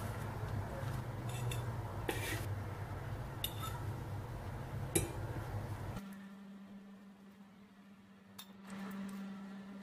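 A metal fork and knife clink and tap against a ceramic plate in a few sharp knocks as roasted eggplant slices are handled and topped. A low steady hum runs underneath and changes abruptly about six seconds in.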